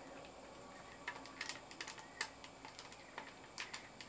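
Faint, irregular metallic clicks and taps as the wing-nut clamps on an aluminium pressure canner's lid are turned and snugged down loosely.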